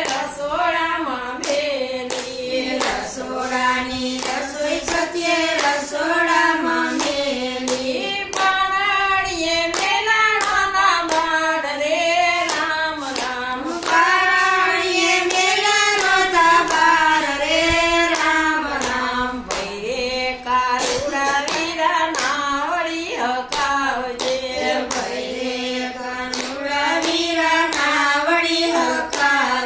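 Group of women singing a Gujarati devotional bhajan together, keeping time with steady hand claps.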